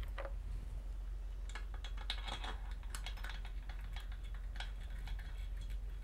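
Light metallic clicks and clinks, scattered and irregular, as bolts are fitted by hand into an aluminum awning mounting bracket, over a low steady hum.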